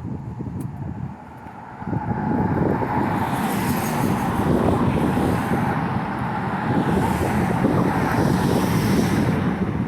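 Wind buffeting the microphone in a strong gust, a loud rough rumble that builds about two seconds in and eases off near the end.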